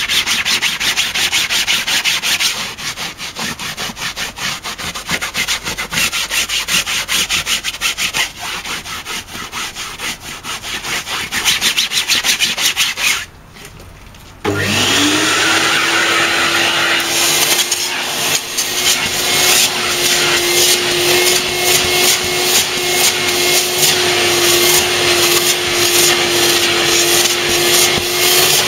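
A gloved hand scrubs foamed fabric bus-seat upholstery in fast rubbing strokes. About halfway through, after a short drop, a vacuum motor starts up with a whine that rises and settles into a steady tone. The nozzle rasps over the fabric in strokes while the motor runs.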